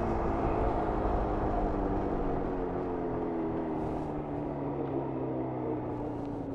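1994 Jawa 350 (type 638) two-stroke twin engine with the throttle eased off, its revs falling slowly as the motorcycle slows. The sound grows gradually quieter.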